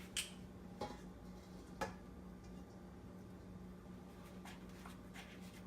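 A few faint clicks and taps of kitchen utensils or containers being handled, three in the first two seconds and a couple of fainter ones near the end, over a steady low hum.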